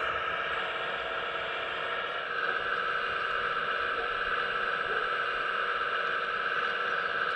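Hydraulic pump of a 1:15 scale RC Hitachi ZX135US excavator whining steadily as the arm and bucket dig. Its pitch steps up slightly about two seconds in.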